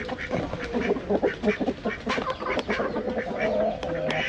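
Farm poultry calling: a jumble of short, irregular calls over a steady hum.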